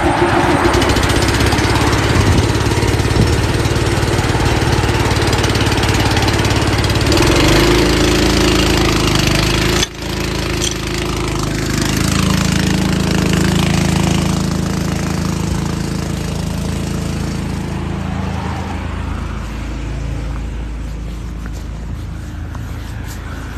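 Motor vehicle engines running steadily beside a busy street, their pitch shifting about seven seconds in, with a brief drop about ten seconds in and the sound easing off toward the end.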